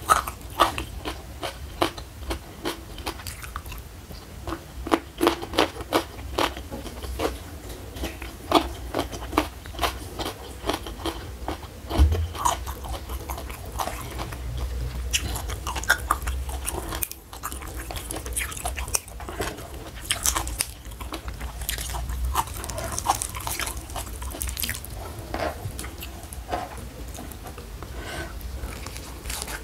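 Close-miked chewing and biting of raw leafy greens and vegetables, a steady run of many short, crisp crunches.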